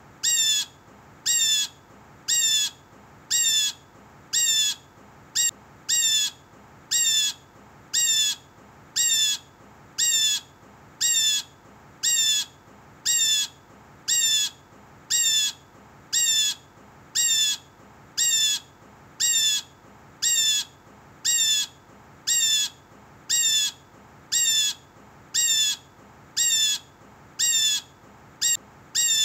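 Blue jay giving its harsh, falling 'jay' call over and over, evenly spaced at about three calls every two seconds.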